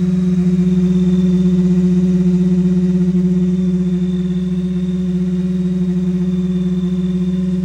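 Ford SVT Lightning's supercharged 5.4-litre V8 idling with a steady, even hum and a faint high whine over it. The noise is the sign of a failing idle air control valve.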